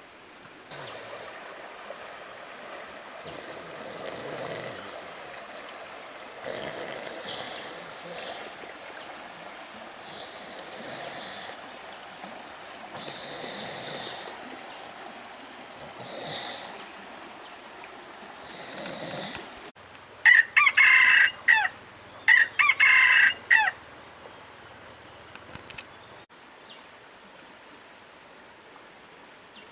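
A rooster crows twice in quick succession, loud, about two-thirds of the way through. Before that, soft rustling comes in short bursts every few seconds.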